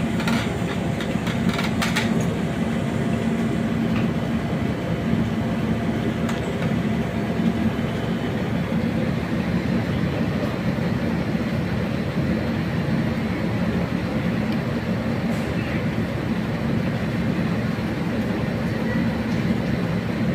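Steady low droning hum with an even rushing noise, unchanging throughout, with a few light clicks in the first two seconds.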